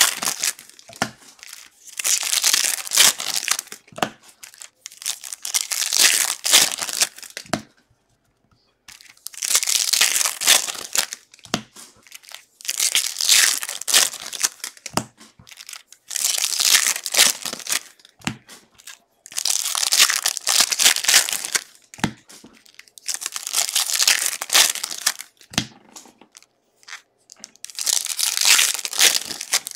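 2023 Bowman baseball hobby packs being torn open by hand, one after another: a burst of wrapper tearing and crinkling about every three seconds, with a soft tap between many of them.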